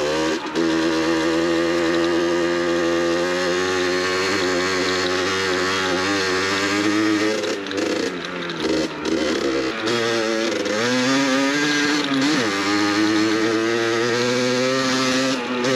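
Beta RR 50 dirt bike's 50cc two-stroke single-cylinder engine running hard off-road. Its pitch rises and falls as the throttle is worked, with short dips about halfway through and again a few seconds later.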